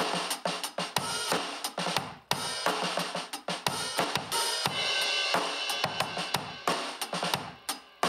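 Drum kit playing a groove, kick, snare and cymbals, picked up by a Shure 520DX Green Bullet harmonica microphone alone and heavily compressed. The hits come fast and thick, with a thin, nasal sound and little deep bass.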